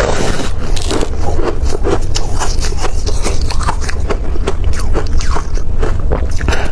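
Freezer frost crunching, close to the microphone: a dense, irregular run of crisp crunches and crackles, over a low steady hum.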